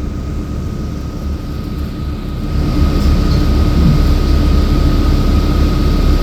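City bus heard from inside while riding: a steady low engine and road rumble with a thin steady whine, growing louder about two and a half seconds in.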